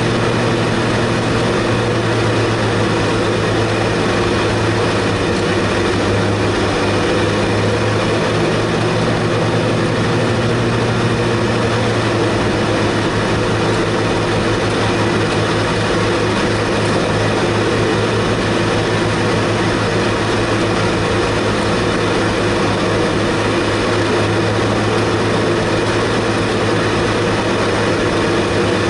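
In-car sound of a club race car's engine held at steady, low revs, a constant drone with no rising or falling, as the car cruises at caution pace behind the safety car.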